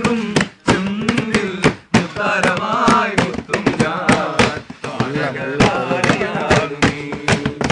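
Men's voices singing or chanting in a rhythm, with hands slapping a wooden tabletop as a drum in sharp repeated knocks.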